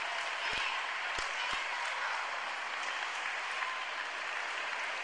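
Audience applauding steadily at the end of a synchronised swimming routine.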